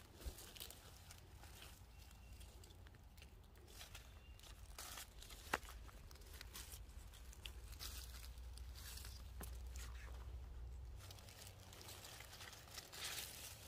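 Faint rustling and crackling of dry leaves and pine needles as a hand searches through the forest floor, with a few sharp little snaps and a low rumble that stops near the end.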